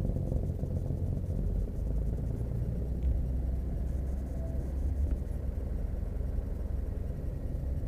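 Sonex light aircraft's Jabiru 3300 six-cylinder engine running steadily, heard from inside the cockpit as an even low rumble.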